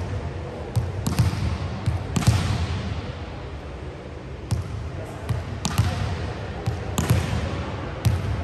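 A volleyball bouncing on a hardwood gym floor: a series of irregular sharp thuds, each echoing in the large hall, over background voices.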